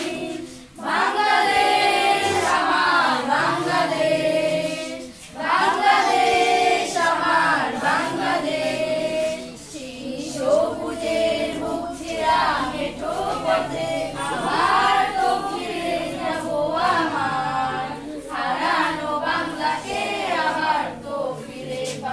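A group of children singing a song together, in sung phrases with short pauses between them.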